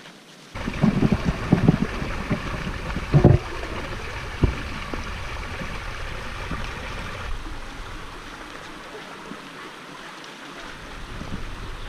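Shallow stream running over rocks, starting abruptly about half a second in and a little softer after about seven seconds. A few low thumps come in the first few seconds.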